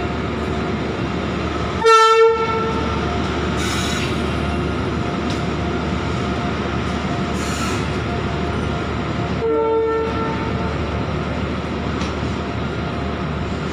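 Long freight train of covered wagons rolling steadily past with a continuous rail rumble. A locomotive air horn gives two short blasts, the louder one about two seconds in and a second one near ten seconds.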